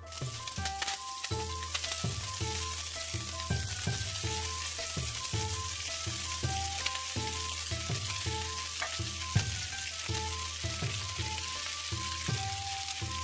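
Shredded cabbage frying in hot oil in a skillet: a steady sizzle that starts as the first handful hits the pan and keeps on as more is added. Light plucked-string background music plays under it.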